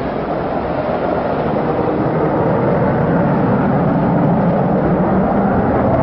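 Distant jet noise from the twin engines of a Chengdu J-20 stealth fighter in flight: a steady, dense rushing sound that grows slowly louder.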